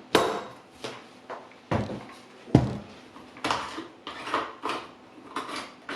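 Chainsaw parts being handled during assembly: a run of knocks and clatters, the loudest about two and a half seconds in.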